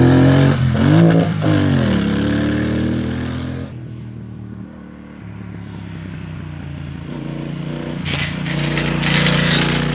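Triumph Speedmaster 1200's parallel-twin engine as the motorcycle rides past close by, its pitch swooping down and up about a second in, then fading away. A few seconds later it approaches again, growing louder toward the end.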